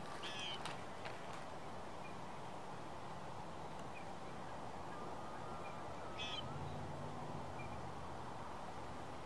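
Steady outdoor background hiss, with two short bird calls, one just after the start and one about six seconds in, and a few faint chirps between them.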